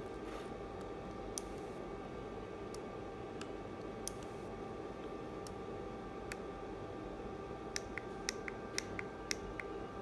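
Small plastic clicks of handheld remote-control buttons being pressed, scattered at first, then a quick run of about eight clicks near the end.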